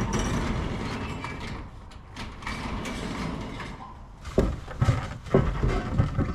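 A steady noisy rumble, then several sharp knocks about four to five and a half seconds in, as heavy green pipes stacked on a trailer are shifted by a gloved hand.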